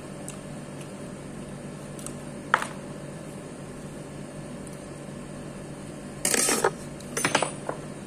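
Steady mechanical hum in a small room, with one sharp click about two and a half seconds in and two short, loud, noisy scrapes near the end.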